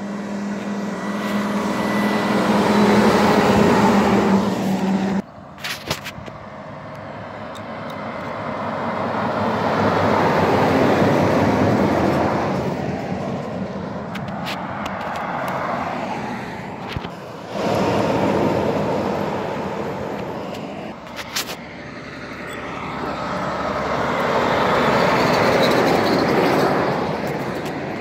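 Log truck's diesel engine running as the truck passes at close range, a steady engine note over road noise that cuts off abruptly about five seconds in. Then several vehicles pass one after another, each a slow rise and fade of tyre and engine noise.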